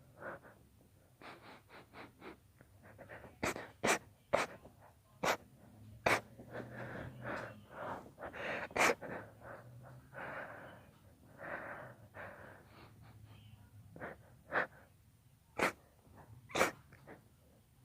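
A girl's induced sneezes: several sharp, sudden sneezes, with breathy gasping inhalations between them.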